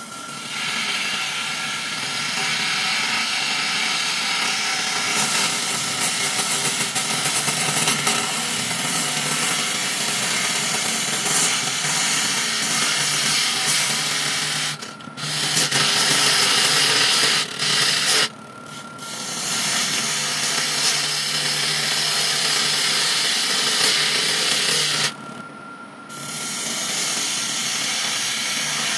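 A gouge cutting the outside of a large monkey puzzle wood blank spinning on a wood lathe: a steady shearing hiss. It breaks off briefly three times, about halfway, a little later, and near the end, leaving only the lathe's steady motor whine.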